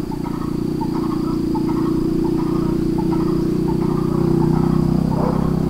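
A small engine running steadily at idle, a low even hum, with a thin high insect whine over it.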